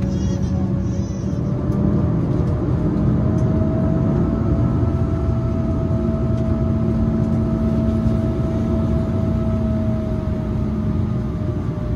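Steady drone and whir inside the cabin of an Embraer 190 parked before engine start, the sound of its air systems running. A couple of held tones rise slightly in pitch a few seconds in and ease back down near the end.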